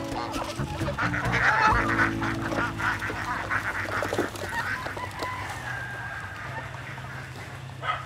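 Geese honking, densest in the first three seconds and thinning out after, with other farm fowl calling.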